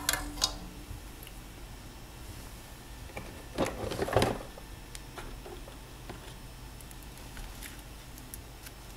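Off-camera handling noises: a few sharp clicks right at the start and a short, louder rattle about three and a half seconds in, with scattered small ticks over a faint steady hum.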